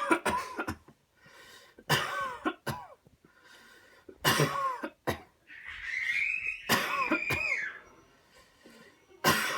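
A person coughing hard on command after a deep breath. It comes in repeated bouts of two or three loud coughs, with a drawn-out high-pitched sound in the middle.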